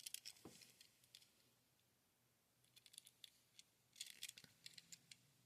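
Faint clicking and crinkling from handling a toy die-cast car in its plastic and card packaging, in three short clusters: at the start, about three seconds in and about four seconds in.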